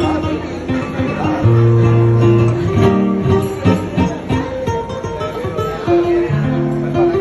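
Live acoustic guitar music: plucked and strummed guitar notes with low held notes underneath.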